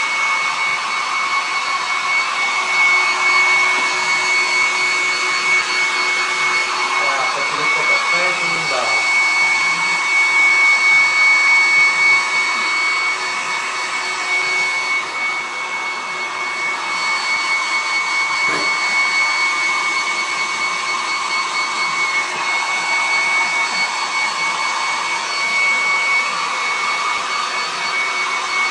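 Handheld hair dryer running steadily: a constant rush of air with a steady high whine.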